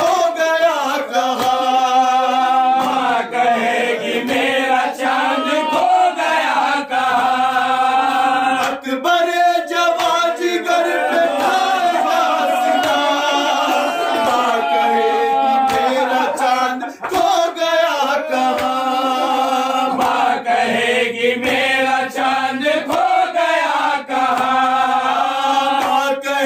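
Men chanting an Urdu nouha (Shia lament) in unison, unaccompanied, with repeated slaps of hands striking chests (matam) running through the chant.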